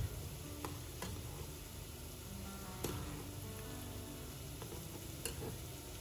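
Food frying in hot oil, a steady sizzle, with a few light clicks scattered through it.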